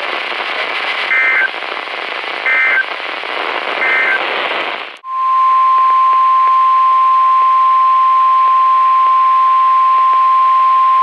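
NOAA Weather Radio over a hiss of static: three short bursts of warbling SAME end-of-message data tones closing a warning. About five seconds in the audio cuts off, and a loud, steady 1050 Hz weather-radio alert tone starts, signalling the next warning.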